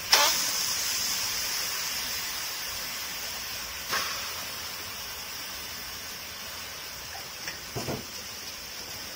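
Chunks of raw meat dropped by hand into a preheated stainless-steel pot, sizzling as they sear. A sudden hiss comes as the first pieces land and another about four seconds in, each fading slowly into a steady sizzle, with a soft knock near the end as another piece goes in.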